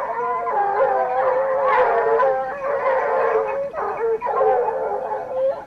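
A pack of Ariégeois hounds giving tongue together while running a wild boar's trail, several baying voices overlapping without a break. Clearer, higher voices mix with deeper, more powerful ones.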